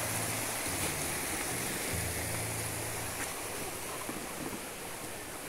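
Steady rushing of a small creek's running water, with a low rumble on the microphone during the first three seconds.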